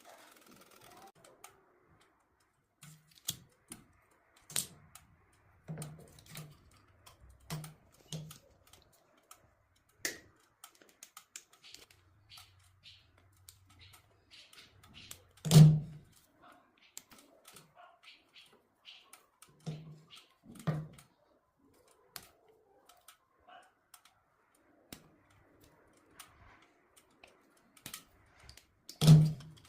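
Irregular clicks, taps and knocks, like hard objects being handled, with a loud thump about halfway through and another near the end.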